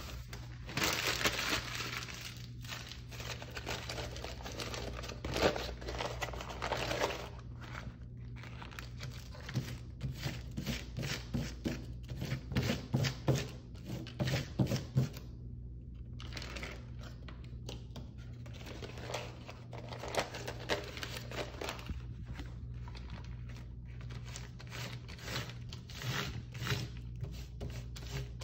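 Crumpled newspaper rustling and crinkling as it is pressed by hand onto wet spray paint and then peeled back off the panel, in irregular crackly bursts over a steady low hum.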